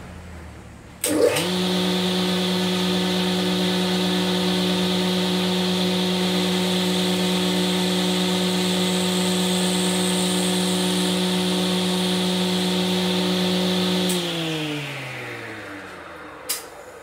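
Electric motor of a woodworking machine's horizontal drill chuck switched on with a click about a second in, spinning up quickly and running with a steady hum while the bit is set into the edge of a wooden board. Near the end it is switched off and winds down, falling in pitch, with a sharp click just before it dies away.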